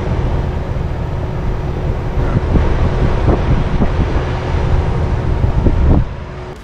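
MrCool 4th Gen 12k BTU mini split outdoor condenser running on turbo: a steady rush of the fan with a faint steady hum, and wind noise on the microphone held up to the grille. The sound drops away about six seconds in.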